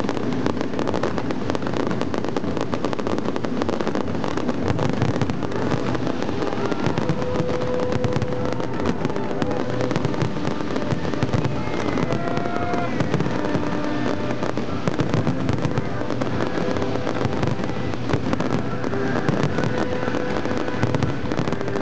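Fireworks display: aerial shells bursting and crackling overhead in a dense, unbroken barrage.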